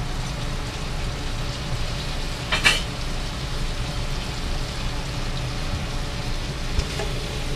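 Fried rice sizzling in a hot wok over a gas burner, a steady frying hiss, with one short clatter about two and a half seconds in.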